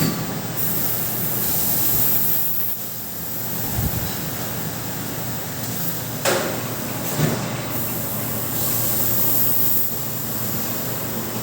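CNC laser cutting machine running: a steady hiss that strengthens and eases in stretches, with sharp knocks about six and seven seconds in.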